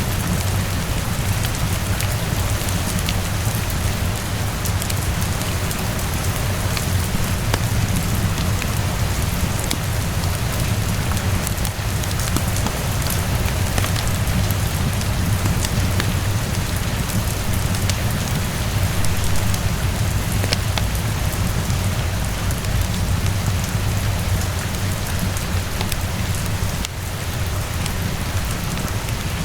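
Steady rainfall with a deep low rumble underneath and scattered sharp clicks throughout.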